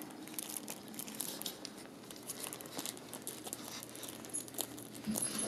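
Clear plastic bag crinkling faintly as it is snipped open with scissors, with scattered small clicks and rustles.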